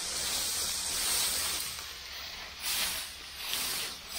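Dry sugarcane stalks and leaves rustling as they are gathered and bundled by hand, over a steady high hiss, with a few louder surges near the end.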